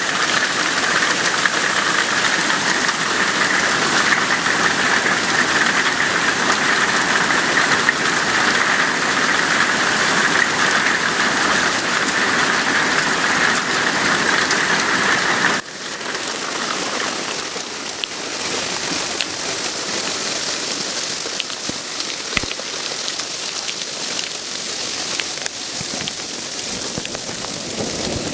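Hailstones falling and striking the ground and nearby surfaces in a dense, steady hiss. About halfway through it drops suddenly to a quieter hiss with scattered separate sharp ticks of single stones.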